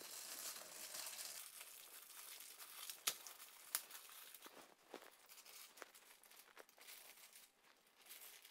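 Thin plastic wrap crinkling faintly as it is peeled off pieces of marinated raw beef, with a few sharp crackles, the loudest about three seconds in.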